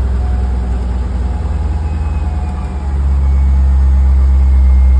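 A 2001 Chevrolet Corvette's V8 engine running at idle after starting on the VATS interrogator, so the security system has accepted the resistance setting. It is uneven at first, then grows louder and steadier about three seconds in.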